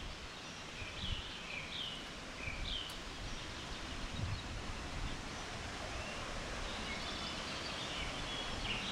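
Steady rush of a mountain creek and cascading waterfall, with a few short bird chirps about one to three seconds in.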